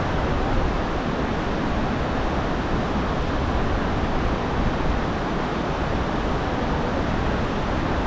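Snoqualmie Falls and the river rapids below it: a steady, even rush of falling and running water.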